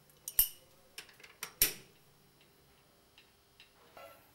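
Socket wrench on the motorcycle's gearbox filler plug: a few sharp metallic clicks in the first two seconds as the plug is tightened, then quiet room noise.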